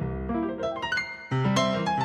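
Piano accompaniment music: a quick run of notes, then a loud low chord struck about a second and a half in.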